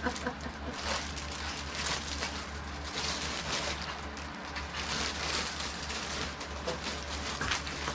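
Plastic garment bags and clothing rustling and crinkling as they are handled, an irregular crackle throughout.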